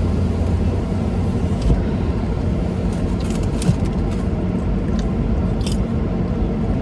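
Steady low road rumble inside a moving car's cabin, with a few short sharp crackles partway through.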